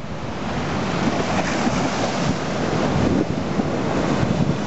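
Storm surf: rough sea surging and breaking against a stone harbour wall and pouring over it, a steady loud rush of water with wind buffeting the microphone.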